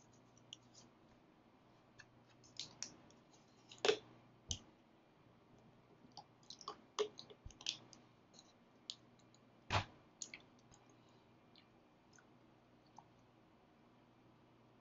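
Faint, irregular clicks and small taps over a low steady hum, with the sharpest clicks about four seconds in and near ten seconds.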